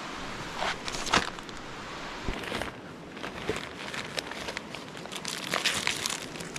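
Plastic food packaging crinkling and rustling as it is handled, in irregular crackles.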